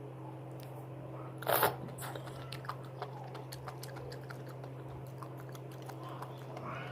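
Enoki mushrooms in spicy sauce bitten once, loudly, about one and a half seconds in, then chewed close to the microphone with many small crackly clicks.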